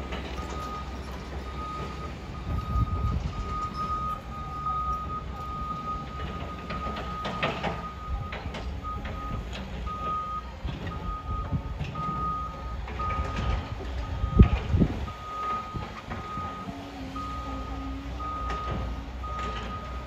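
Backup alarm beeping at an even pace, about three beeps every two seconds, as a Cat 730 articulated dump truck reverses, over the low steady running of its diesel engine. A heavy thump sounds about two-thirds of the way through.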